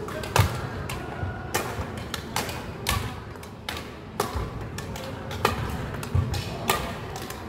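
Badminton rackets striking shuttlecocks and feet thudding on a wooden gym floor during a side-to-side jumping footwork drill, a sharp hit or landing thud every half second to second.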